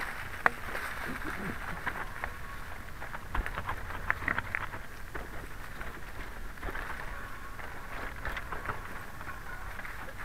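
The knobby tyres of a KMX Cobra recumbent trike rolling over dry leaf litter, a steady crackling crunch with many scattered sharp clicks, the loudest about half a second in.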